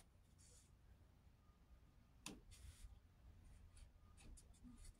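Near silence, broken by a few faint clicks and brief rustles of small things being handled by hand, the clearest click about two seconds in.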